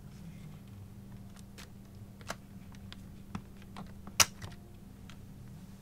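Hard plastic parts of a large Transformers planet-mode toy clicking as they are handled and moved, a few light clicks with one sharper snap about four seconds in.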